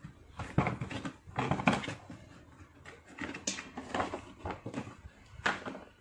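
Plastic snap clips of a spin mop bucket's top frame being pried loose with a screwdriver and the frame pulled off: a run of irregular plastic clicks, creaks and knocks.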